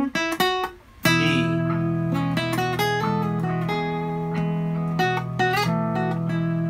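Steel-string acoustic guitar playing a lead solo in E major, picked single notes and arpeggios. About a second in, a looped backing chord comes in and holds underneath the lead notes.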